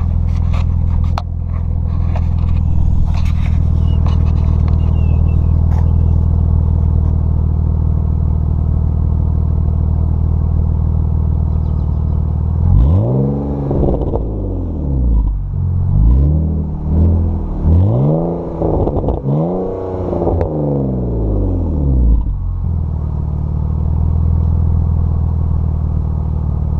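1999 BMW 323i's inline-six through an aftermarket Magnaflow exhaust, heard at the tailpipes. It idles with a mild rumble. About halfway through it is revved in about five quick blips, each rising and falling in pitch, then it settles back to idle.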